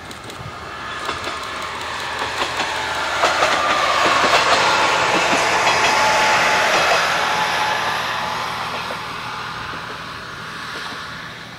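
A single-car Yuri Kogen Railway diesel railcar passing by on the track, growing louder to a peak about halfway through and then fading away. The wheels click over the rail joints as it passes.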